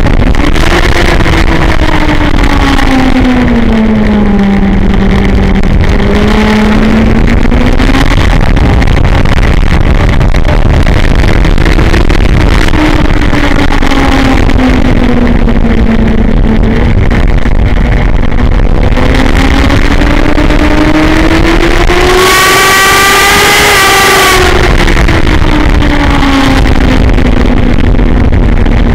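Motorcycle engine heard from an onboard camera at racing speed, under heavy wind rush on the microphone. The engine pitch sinks and climbs again several times through the corners, and rises highest and loudest about three quarters of the way through, with a brief burst of hiss.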